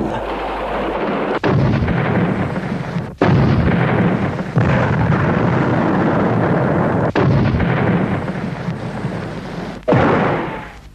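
Artillery fire and shell explosions: a dense, rumbling run of blasts, each segment starting abruptly as if spliced in, the last one, about ten seconds in, fading away.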